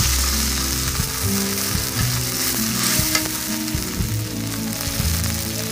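Chopped onions and green chillies sizzling in hot oil in a karahi, a little water just added for braising, with a steady frying hiss.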